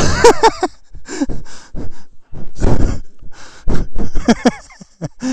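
A man breathing hard, with gasps and short voiced bursts, near the start and again about four seconds in.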